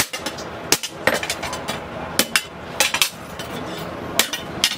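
Hand hammer striking a steel blade blank made from a chainsaw, held in tongs on a steel post anvil. About ten sharp metal-on-metal strikes come at an uneven pace, some in quick pairs.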